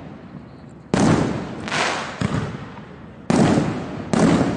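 A 2-inch, 49-shot firework cake firing shells: three loud booms, about a second in, past three seconds and just after four seconds, each fading off in a rumble, with two smaller pops in between.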